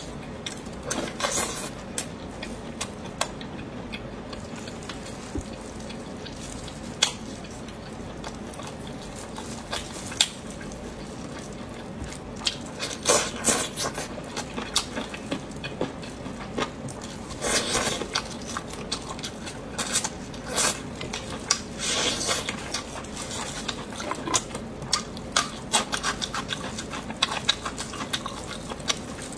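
Eating sounds: utensils clicking and scraping against dishes, with chewing, in short irregular bursts.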